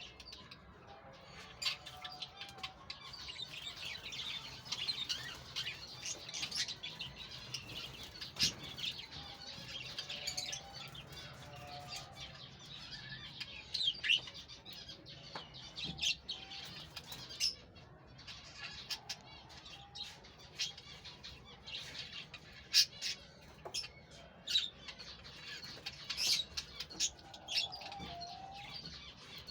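Parrots chattering with a constant stream of short chirps and sharp clicks, with wings flapping now and then.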